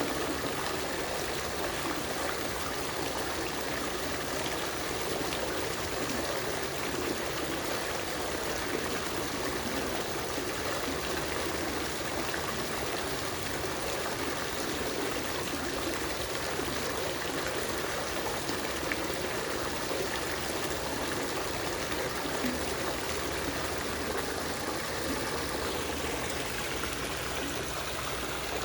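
Water fountain running: a steady trickle and splash of falling water.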